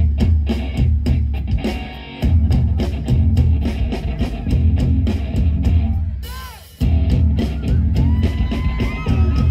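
Live rock band playing an instrumental passage: electric guitars, bass and drum kit with a steady beat. The band drops back briefly twice, about two seconds in and again past the middle, and comes back in at full level.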